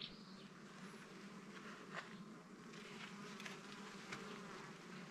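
Honeybees humming faintly from an opened hive, a steady low drone, with a couple of faint clicks.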